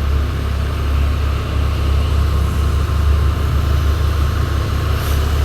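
Hino 500 truck's diesel engine running, a steady low drone.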